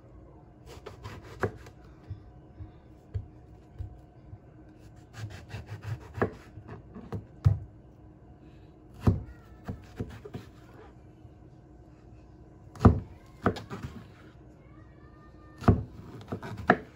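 Large kitchen knife cutting through long purple eggplants on a plastic cutting board: irregular knocks of the blade hitting the board in short clusters, with softer rubbing as it slices through the flesh. The loudest knocks come about halfway through and twice near the end.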